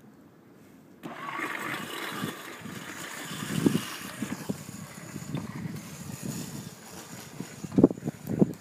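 Homemade robot lawn mower switched on: about a second in its motors start abruptly and run with a steady whirring noise as it drives over the grass, with low knocks throughout and two sharp knocks near the end.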